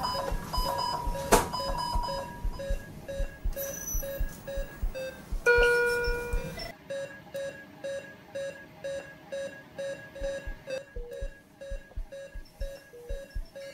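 Patient monitor beeping fast and evenly, about two and a half short beeps a second, over low heartbeat-like thuds at the same pace. A louder chime of several tones sounds about five and a half seconds in.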